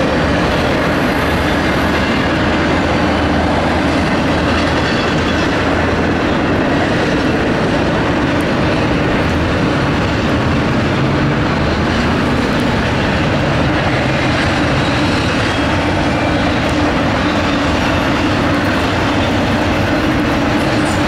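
Double-stack intermodal container freight train rolling past at speed: a steady, loud rolling noise of the cars' steel wheels on the rails.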